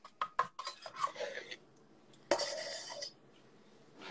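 Several quick clinks and knocks of a pan and utensils, then a short, sudden hiss a little past two seconds in as Swedish pancake batter is poured into the hot pan.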